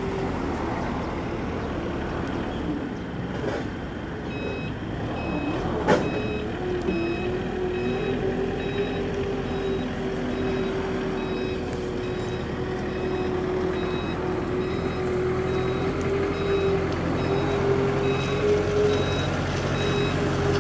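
An engine running steadily, with a high electronic beep starting about four seconds in and repeating about every 0.7 seconds. A single sharp click about six seconds in.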